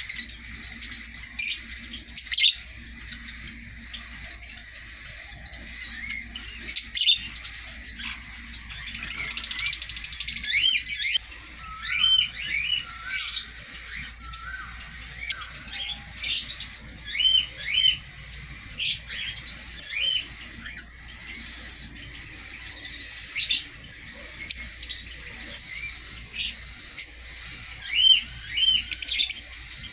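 Aviary birds chirping and calling: many short, sharp high chirps come at irregular intervals, mixed with paired arching call notes that repeat several times.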